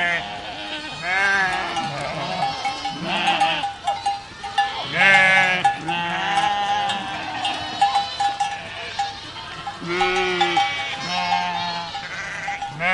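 A herd of goats bleating, many calls overlapping one after another, with a bell clanking among them.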